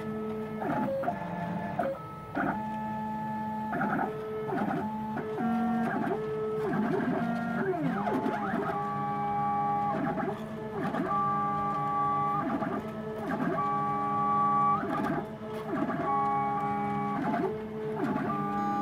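Stepper motors of a home-built CNC router, driving the gantry along threaded-rod lead screws during an air-cut test with no spindle running. They whine at a steady pitch through each move and slide up or down in pitch as the axes speed up and slow down between moves, changing every second or two.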